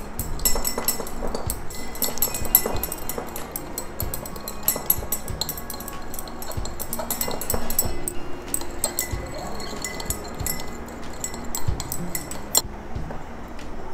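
Glass beaker clinking and ticking repeatedly and irregularly while nickel sulfate is being dissolved in its water, stopping suddenly near the end.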